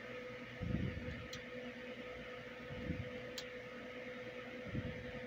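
Quiet room tone with a steady low electrical hum, three soft low thumps and a couple of faint ticks.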